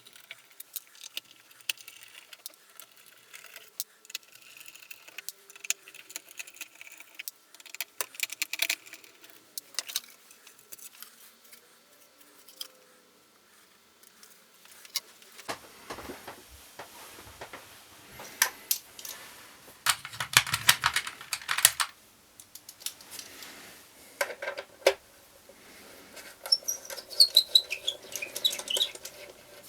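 Hand tools and small metal parts clicking, tapping and scraping against an electric guitar as it is taken apart, with a busier spell of louder handling clatter about two-thirds of the way through and a few short squeaks near the end.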